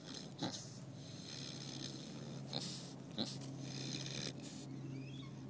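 Sleeping boar snoring, with slow breathy breaths in and out and a few short sharp snuffles.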